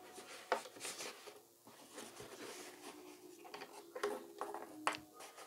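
Hands handling a small thermostat circuit board and its wires against a foam box, making faint scattered clicks, taps and rustles.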